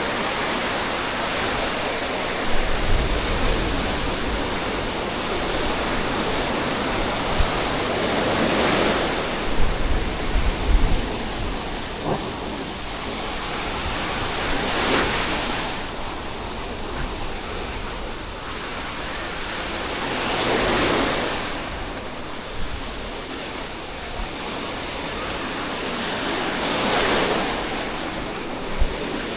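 Sea surf washing on the shore, a wave swelling and breaking about every six seconds over a steady wash. Wind buffets the microphone with low rumbles for the first ten seconds or so.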